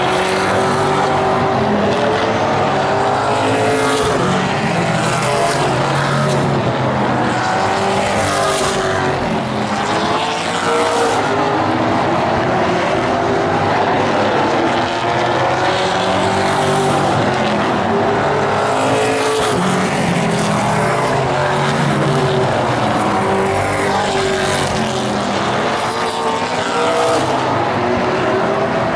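Pro Late Model stock cars racing, several V8 engines running at once, their pitch rising and falling over and over as they accelerate and lift.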